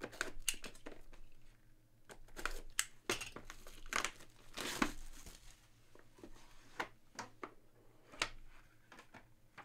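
Hands tearing the sealed wrap off a small cardboard box with its red pull strip, then working the box open: crinkling and tearing with scattered sharp clicks and crackles of cardboard.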